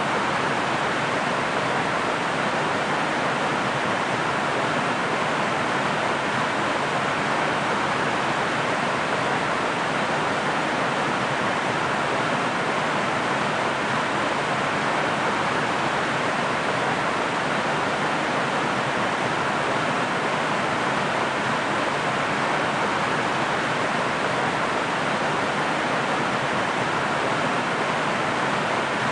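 Waterfall: falling water rushing in a steady, unchanging hiss.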